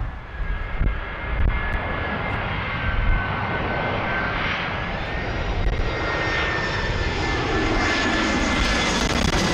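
Lufthansa Airbus A319-114's CFM56 turbofans on final approach, a steady jet whine with a couple of high tones that sag slightly in pitch and come back up, growing a little louder as the aircraft nears. Wind rumbles on the microphone underneath.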